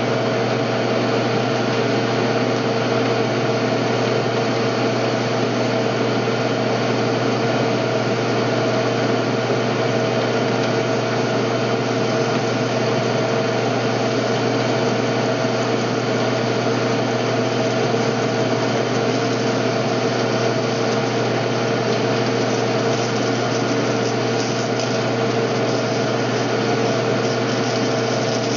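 Metal lathe running steadily with a constant hum and a couple of fixed machine tones, taking a turning pass along a 1.5-inch 12L14 steel bar to bring it down toward 1.375 inch.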